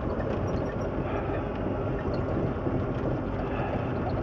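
Volvo semi-truck tractor's diesel engine running steadily as the truck drives, heard from inside the cab as an even low rumble.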